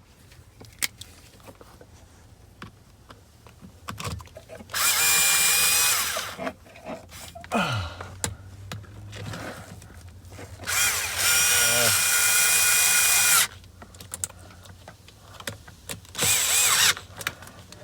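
Power drill-driver with a Phillips bit running in three short bursts, driving in the screws that hold the replacement multifunction switch and cruise control switch on a steering column. The middle run is the longest; light clicks of parts being handled come between the runs.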